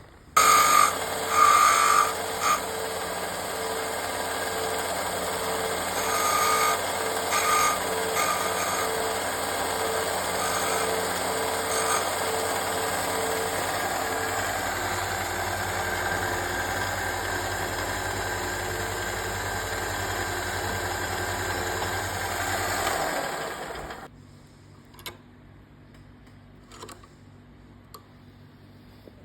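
Electric sander running steadily with a low hum, abrading an unbleached bone guitar nut. It starts abruptly and is switched off near the end, leaving a few faint handling clicks.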